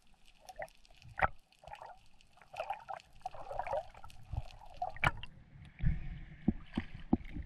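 Underwater water sounds around a camera on a diver's ascent: scattered sharp clicks and bubbling gurgles. About six seconds in, the camera breaks the sea surface and small waves wash and splash against it.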